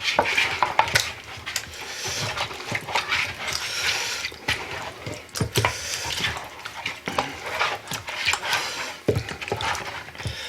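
Hands squishing and mixing raw chicken drumsticks in a bowl of oily soy-honey marinade: irregular wet squelches and clicks.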